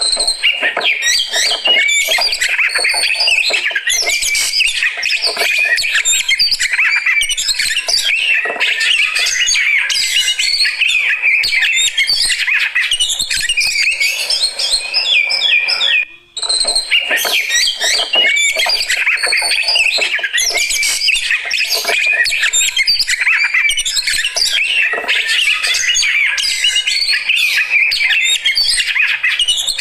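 Oriental magpie-robin (kacer) singing a fast, unbroken, varied song of chirps and whistles, which cuts out briefly about halfway through.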